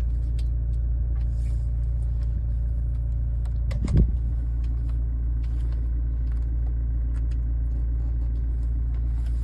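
Toyota Prado 150's engine idling, a steady low rumble heard from inside the cabin, with one short knock about four seconds in.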